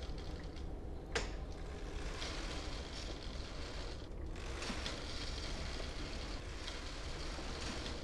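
Hand-operated flat-bed knitting machine being worked: a steady mechanical rattle of the carriage and needle bed, with one sharp click about a second in.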